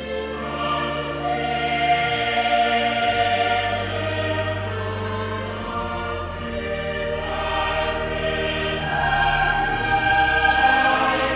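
Choir singing slow, held chords over sustained low notes that change in steps.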